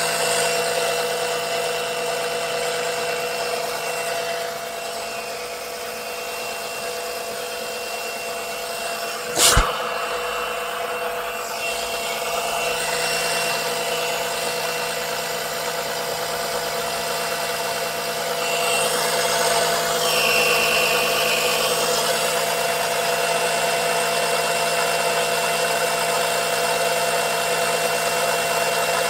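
Small electric suction pump running steadily to draw engine oil out, a constant whine-like hum, with one sharp knock about nine and a half seconds in.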